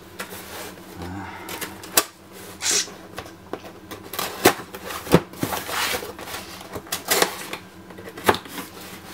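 A small knife slitting the packing tape on a cardboard shipping box, with short hissing scrapes as the blade runs along the seams and scattered clicks and taps of the blade and hands on the cardboard.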